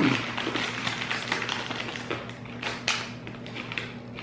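Crackling of a clear plastic bag of caramel popcorn being handled, with crunching as the caramel corn is chewed: a run of irregular sharp clicks.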